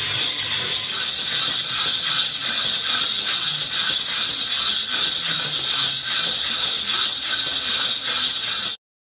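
Pedal-powered circuit-board shredder prototype running: a steady hissing whir from its spinning rotor and bicycle drive. It cuts off suddenly near the end.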